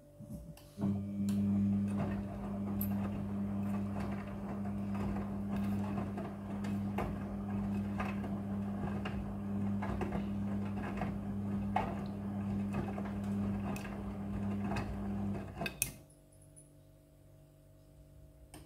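Front-loading washing machine drum turning during the wash cycle: a steady motor hum with irregular clicks and clinks from the clothes tumbling in the drum. It starts suddenly about a second in and stops abruptly a few seconds before the end.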